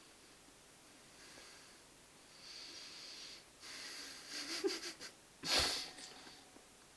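A person breathing hard through the nose, with hissing breaths and a sharp snort about five and a half seconds in, while straining to swallow a mouthful that won't go down.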